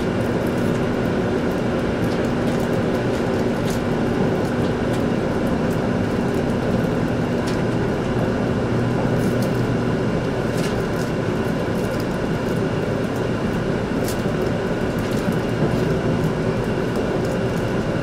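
Cabin noise inside a 100 series Shinkansen pulling out of the station and gathering speed: a steady running rumble and hum, its pitch shifting about halfway through, with a few sharp clicks from the wheels.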